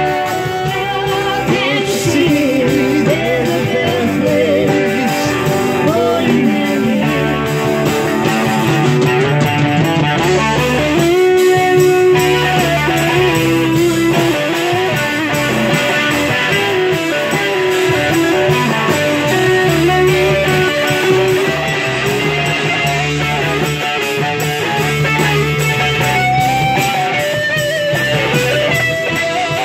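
Live band playing: electric guitars over bass guitar and drums, amplified through small stage amps.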